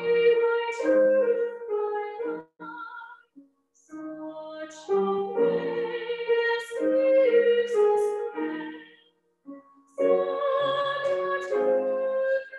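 A woman singing a hymn solo in long, held phrases, stopping twice between phrases.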